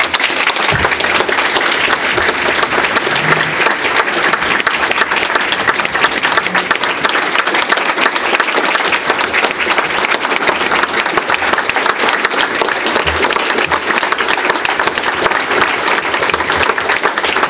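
Audience of about 170 people clapping steadily, a standing ovation.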